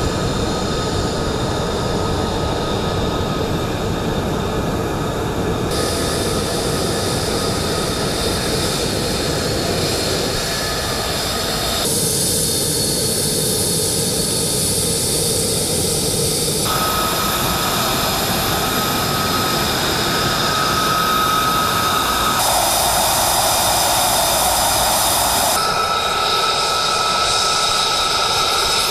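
F-35A fighter jets' single Pratt & Whitney F135 turbofan engines running on the ground as the jets taxi and roll along the runway: a steady jet roar with a high whine over it. The sound changes abruptly about five times as one jet gives way to the next.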